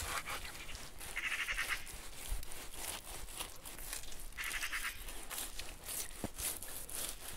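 Kitchen knife cutting and scraping steamed meat off a leg-of-lamb bone: a series of short cuts and scrapes, with two longer rasping sounds about a second in and about four and a half seconds in.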